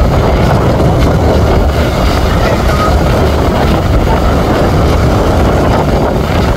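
Fishing boat's engine running steadily, a loud continuous rumble.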